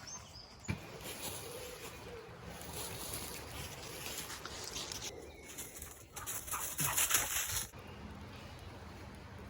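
Campfire kindling burning and crackling, with scattered small pops and a louder burst of crackling from about six to nearly eight seconds in.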